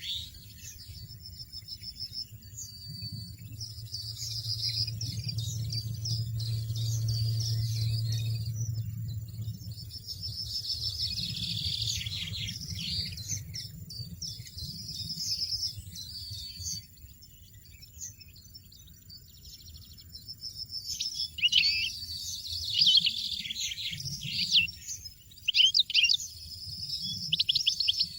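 European goldfinches chirping and twittering in quick, high trills and call notes, with a few louder calls near the end. A low hum runs underneath for several seconds in the first half.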